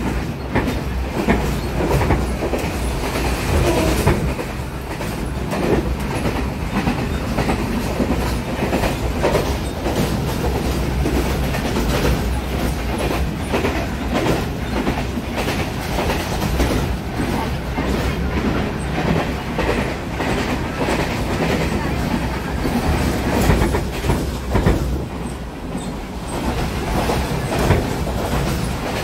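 Passenger train running, heard from inside the carriage: a steady rumble with the wheels clacking over the rail joints.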